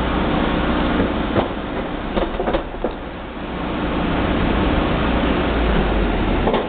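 Van engine running, its exhaust blowing out of the tailpipe close by: a steady low rumble with a rushing hiss that dips briefly about three seconds in and swells again, with a few light knocks.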